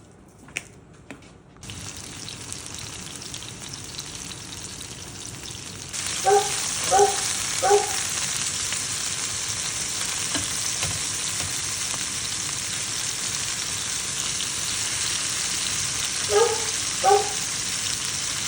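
Chicken breast frying in hot oil in a skillet: a steady sizzle that starts a couple of seconds in and gets much louder about six seconds in. Three short pitched calls sound over it just after it gets louder, and two more come near the end.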